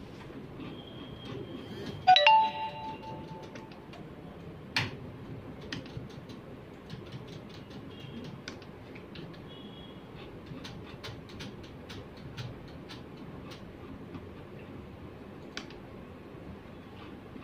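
An electronic chime about two seconds in, ringing with several tones and fading over about a second and a half, over a steady room hum. Then a sharp click, a few faint short high beeps, and a run of small clicks.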